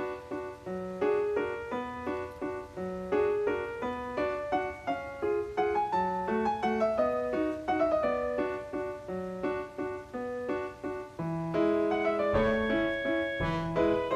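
Background piano music: a melody of short notes over a lower accompaniment, growing fuller and louder about twelve seconds in.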